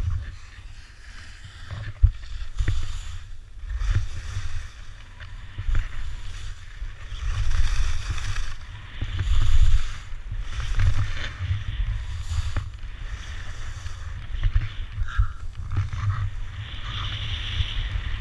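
Wind buffeting an action camera's microphone while skiing downhill, a steady low rumble, with the hiss of skis scraping over hard-packed snow rising and fading in repeated swells. A sharp click about two seconds in.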